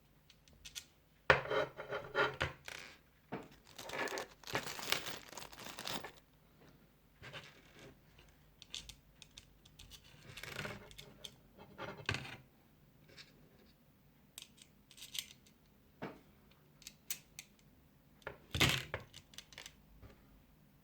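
Hands handling small PC hardware parts and their packaging: bouts of rustling and scraping with sharp little clicks and clinks. The busiest stretch is in the first few seconds, with another burst near the end.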